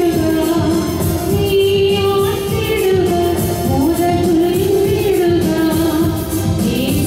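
A woman singing a gospel song into a microphone, holding long notes with vibrato, over electronic keyboard accompaniment.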